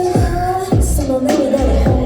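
Live electronic pop/hip-hop music played loud over a PA: a deep kick drum that drops in pitch, about twice a second, under sustained synth notes.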